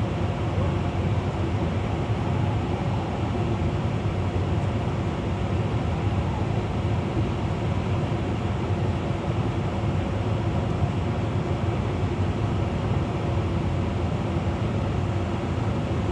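A large vehicle's engine running steadily, a low even drone that holds without revving or change.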